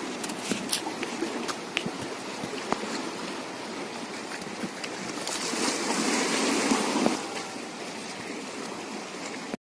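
Seawater washing and lapping at the shoreline, swelling for a couple of seconds about five seconds in, with scattered small clicks and knocks.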